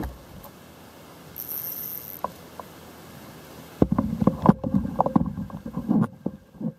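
Soft water hiss under a moving kayak, then from about four seconds in a run of irregular knocks and clatter from a fishing rod and reel being handled while a hooked fish is reeled in.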